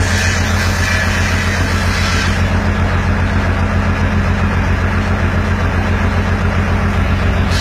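Truck's diesel engine running steadily, powering the truck-mounted crane that is lifting a bundle of wooden beams. A high hiss sounds over the first two seconds.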